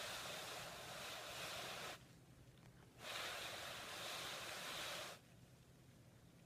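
A person shushing: two long "shh" sounds, each two to three seconds, with a second's pause between them.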